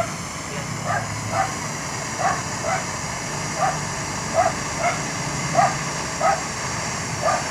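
A dog barking repeatedly, about ten short barks that often come in pairs, over the steady hiss of a lit butane torch flame.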